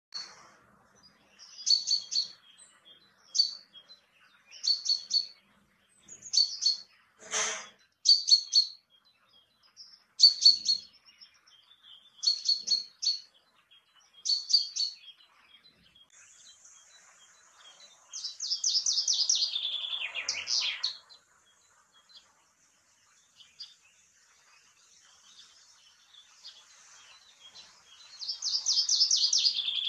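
Male common chaffinch calling with short high chirps every second or two, then singing its falling trill of a song twice, once a little past halfway and again near the end.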